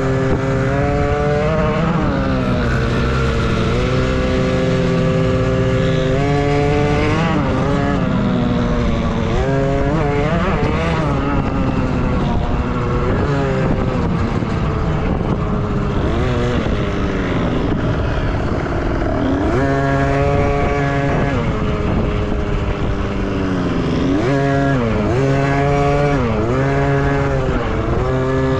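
Dirt bike engines racing off-road, their pitch climbing and dropping again and again as the riders throttle up and back off, with more than one bike heard at once in the later part.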